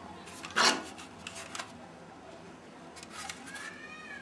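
Hands handling a plastic router casing on a tabletop: a short, loud scraping rub about half a second in, then faint rubbing and handling noise.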